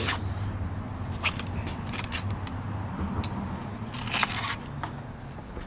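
Scattered clicks and short scrapes of metal parts being handled while a fitting on a 2x72 belt grinder is loosened, the loudest scrape about four seconds in, over a low steady hum.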